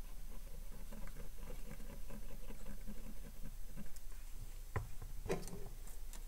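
Cotton swab scrubbing a wet circuit board around freshly soldered pads: faint, rapid scratchy rubbing, then two or three sharp clicks near the end.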